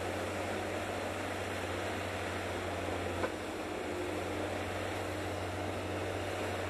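Komatsu XT450L-2 tracked harvester's diesel engine and hydraulics running steadily while the head handles a felled tree, with a single sharp knock about three seconds in.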